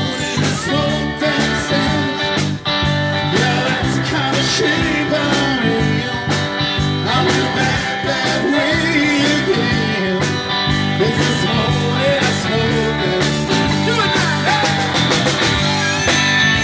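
Live blues-rock band playing an instrumental break: bass and electric guitar under a steady beat, with a lead line that bends and wavers in pitch. A harmonica is being played into the microphone near the end.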